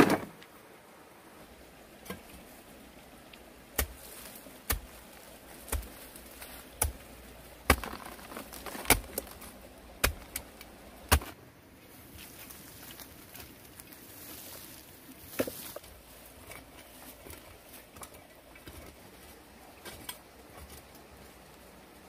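A hoe chopping into dry earth, its blade striking the ground in sharp blows about once a second through the first half, with one more blow later on. It opens with a single loud knock.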